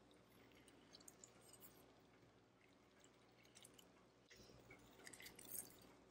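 Near silence: room tone with a few faint small ticks.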